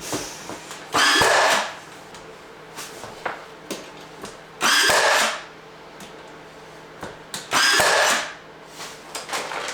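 A power drill running in three short bursts, each winding down as the trigger is let go, with small clicks and handling knocks between them.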